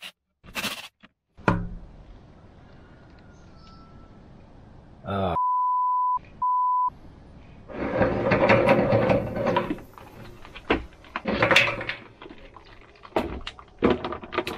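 Steel links of the grader's broken drive chain clanking and rattling as the chain is dragged out of its tandem chain case, in irregular bursts through the second half. Before that, about halfway in, a steady electronic bleep sounds twice.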